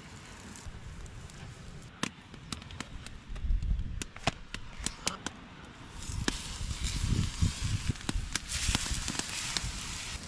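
Campfire crackling, with irregular sharp pops and snaps over a hiss that grows louder about halfway through.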